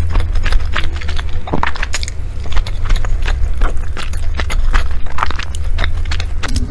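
Close-miked chewing of sticky glutinous rice and meat zongzi: irregular wet mouth clicks and smacks, with chopsticks tapping and pulling at the rice on the dish, over a steady low hum.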